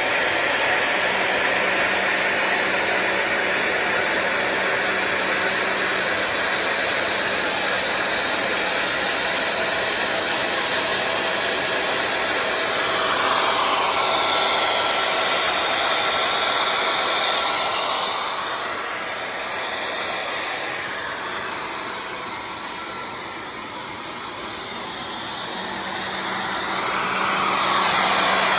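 Accu-Cut CNC router running, a steady high-speed motor whine with air noise from the cutting spindle. Its tone sweeps up and down in the later part, and it gets quieter for a while before coming back up near the end.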